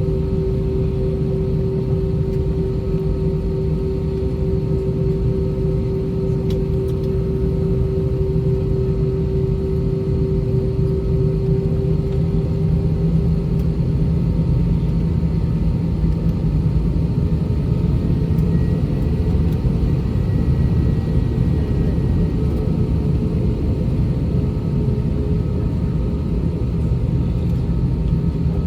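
Cabin noise of an Airbus A320-232 taxiing, its IAE V2500 engines at idle thrust: a steady low rumble with a constant hum of several tones, one of which fades out about halfway through.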